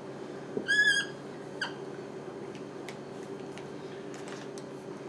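Dry-erase marker on a whiteboard: a light tap as the tip meets the board, then a short high squeak, and a second, briefer squeak under a second later, over a steady low hum.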